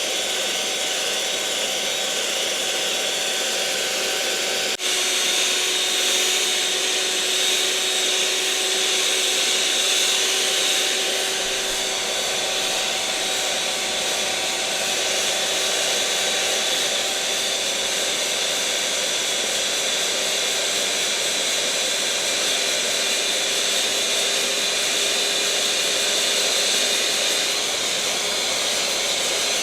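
Electric kitchen mixer motor running steadily with a whirring whine. About five seconds in there is an abrupt break, and after it the whine carries on at a lower pitch and slightly louder.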